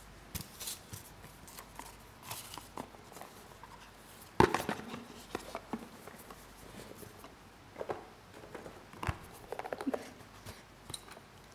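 Slips of paper and a small box being handled close to a lectern microphone: scattered rustling and light clicks, with a sharp knock about four seconds in, the loudest sound, and another just after nine seconds.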